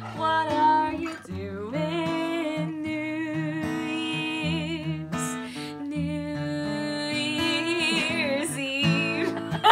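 Bernese Mountain Dog howling along to music: long, wavering pitched howls that rise and fall over a steady guitar accompaniment.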